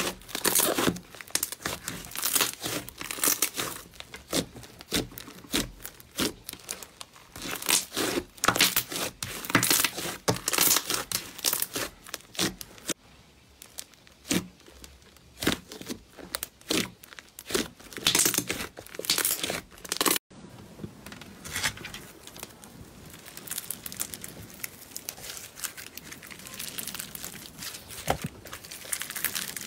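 Slime being squeezed, stretched and pressed by hand, giving a stream of short sticky crackles and snaps. About twenty seconds in, the sound cuts abruptly to a softer, denser crackling.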